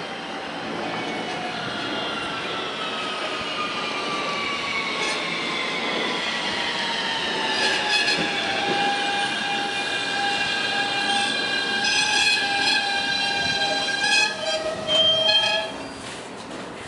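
R160B Siemens subway train braking into a station. Its propulsion inverters whine in several tones that fall in pitch for the first half, then hold steady as it slows, over the rumble of wheels on the rails. A louder squeal comes near the end as it comes to a stop.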